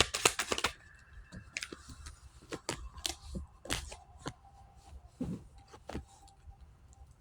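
Tarot cards being handled and shuffled: a quick run of crisp card snaps and flutters in the first second, then scattered single snaps and rustles as cards are moved.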